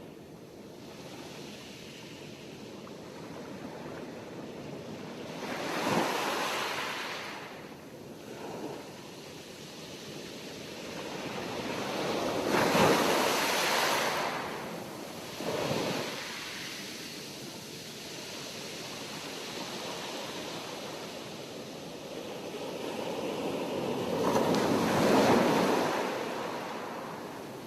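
Sea waves breaking, the rush of water swelling and fading in surges every few seconds, the loudest about halfway through and again near the end.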